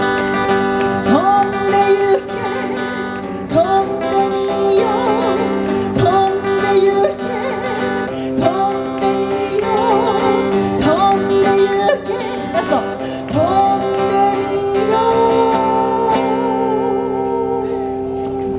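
Acoustic guitar strummed under a woman singing a melody. Near the end she holds one long note.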